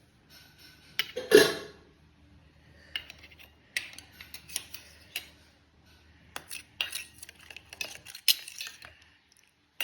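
A spoon clinking and scraping against a small vessel, stirring betel-leaf and ginger juice together for a home cough remedy, with a louder clatter about a second in.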